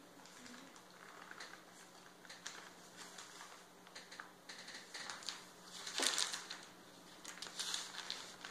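Paper bag of confectioners' sugar rustling and crinkling in the hands as it is tipped, with powdered sugar pouring into a metal sieve; irregular short crackles, loudest about six seconds in.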